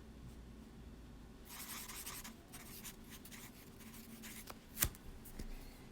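Light scratching and rustling of small objects being handled at a desk, followed by scattered soft clicks and one sharper click near the end.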